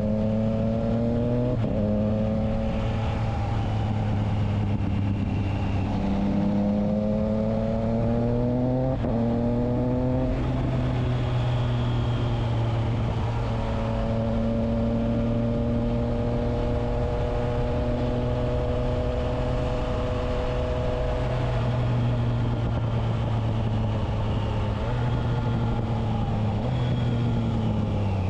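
Triumph Trident 660's inline three-cylinder engine through a SPARK aftermarket exhaust with the dB killer fitted, running steadily under way. Its pitch climbs and dips as the throttle and gears change, with several sudden pitch jumps at gear changes.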